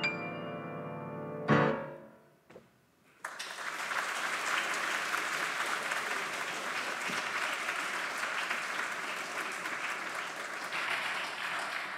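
Grand piano closing a solo piece: held notes fade, one final chord about a second and a half in, then a short silence. An audience then breaks into steady applause that carries on to the end.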